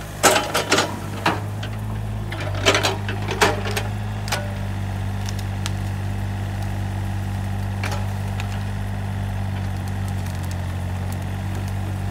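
Takeuchi TB135 mini excavator's diesel engine running steadily under hydraulic work. In the first few seconds there is a run of sharp knocks and clatter as the bucket and its load of brush, roots and dirt come down around the steel dump trailer.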